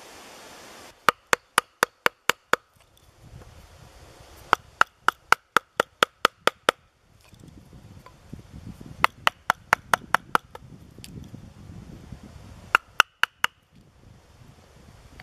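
Steel chisel driven by mallet blows into a log, cutting a hole in a carving bench: runs of sharp strikes about four a second, each with a short ringing tone. Four runs of roughly seven, ten, seven and four strikes, with brief pauses between.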